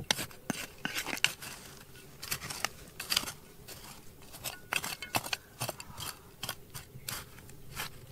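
Irregular sharp clinks and scrapes of hard objects being handled, a few a second.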